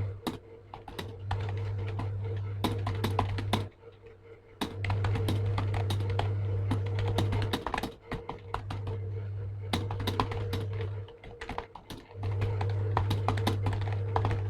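Fast typing on a Zebronics computer keyboard: a rapid stream of key clicks. A loud low hum switches on and off in four stretches of a few seconds each.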